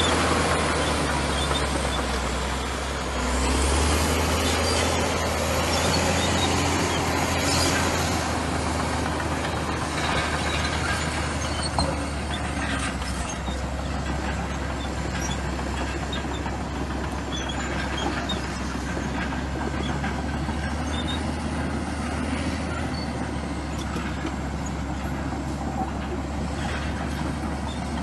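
Komatsu bulldozer's diesel engine running steadily under load, a deep drone with noisy machine clatter over it and a few short knocks. The level dips briefly about three seconds in and picks up again.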